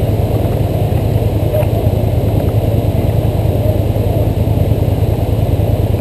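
ATV engine idling steadily, heard close from a camera mounted on the quad.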